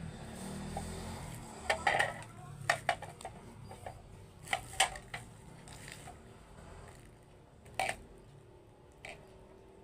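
Hard plastic parts being handled, knocking and clinking: a handful of sharp knocks about 2 and 3 seconds in, a pair near 5 seconds, another near 8 seconds and a last light tap near 9 seconds.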